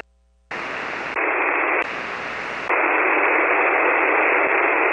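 Shortwave ham radio receiver tuned to a 40-metre single-sideband frequency, giving out steady band-noise hiss with no signal copied. It cuts out briefly near the start, then the hiss changes in brightness twice and gets louder after a few seconds.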